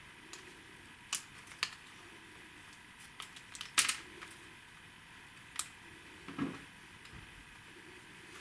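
Laser-cut wooden kit pieces being handled and pressed together: separate sharp clicks and taps, with a quick cluster of louder ones about midway.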